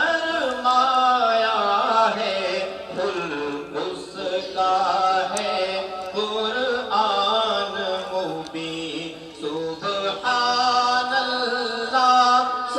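A man's voice singing a naat, an Urdu devotional song, in long held notes that glide up and down, with short breaks between phrases.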